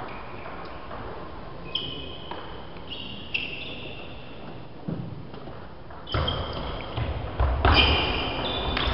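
Table tennis balls clicking off the table and paddles, the hits ringing in a large hall. Single hits come now and then at first, then a rally of quicker hits starts about six seconds in.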